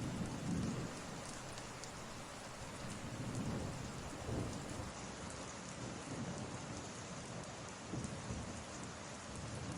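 Steady rain ambience laid under a voice recording as an added background track, an even hiss of falling rain with a few soft low rumbles swelling and fading.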